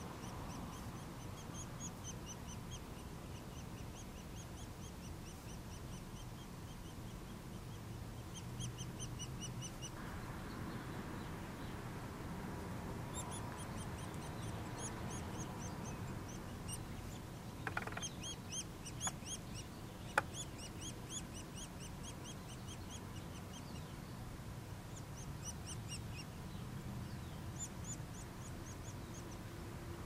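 Nuttall's woodpecker nestlings begging from inside the nest cavity: short, high chirps repeated in quick runs, busier around the middle while the adult is at the hole feeding them. A few sharp knocks sound a little past halfway.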